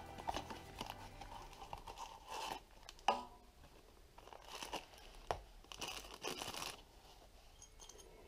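Wrapping being crinkled and torn in several short bursts while oil filter parts are handled, with one sharp knock about three seconds in.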